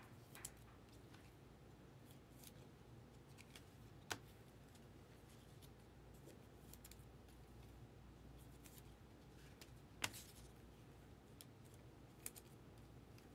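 Near silence with a few short, sharp clicks and light crinkles as foil trading-card packs are handled; the loudest click comes about ten seconds in.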